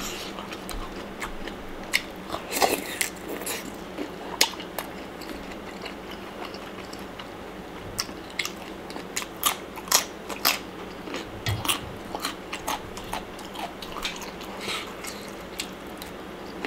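Close-miked eating: a person chewing mouthfuls of Thai pounded salad with stink beans, shrimp and raw vegetables, with sharp, irregular crunches from the crisp vegetables, bunched most thickly a little past the middle.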